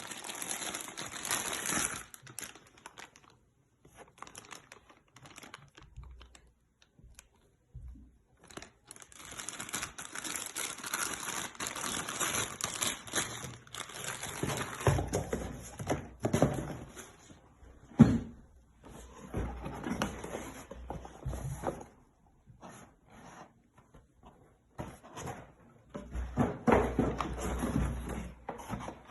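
Packaging crinkling and tearing as engine rebuild kit parts are unpacked by hand, in irregular spells with short pauses, with scattered knocks and one sharp knock a little past the middle.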